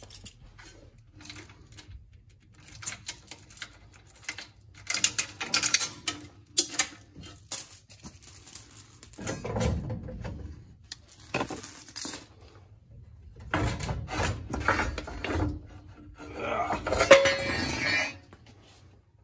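A steel safety chain and padlock rattling and clinking against a car's front suspension as they are unhooked from the removed coil spring and lower control arm, with knocks of loose metal. The rattles come in bursts, and the longest and loudest comes near the end.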